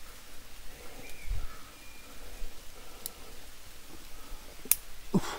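Climbing gear rustling and clicking as a climber moves up the rock: a few sharp metallic clicks of carabiners and quickdraws, with a soft thump about a second in.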